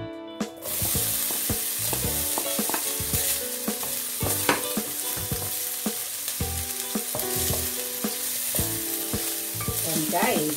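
Diced Spam hitting hot cooking oil in a stainless steel pan, bursting into a sizzle about half a second in and then frying steadily. A wooden spatula stirs it, clicking and knocking against the pan.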